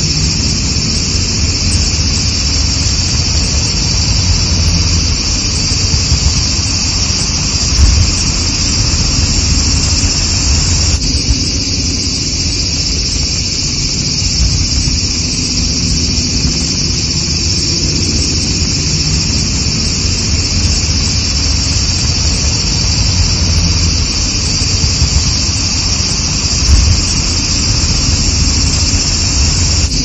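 Dense chorus of cicadas buzzing loudly and continuously in a high, unbroken drone, over a low rumble with two brief low thumps, about eight seconds in and near the end.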